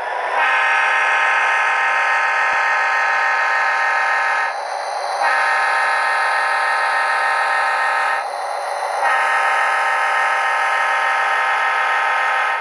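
A diesel locomotive horn sounded by an HO-scale model's SoundTraxx Tsunami sound decoder, three long blasts with a rushing noise filling the two short breaks between them.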